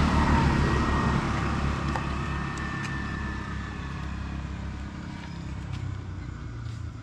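Motor scooter riding past close by, its engine hum loudest at first and fading away over several seconds.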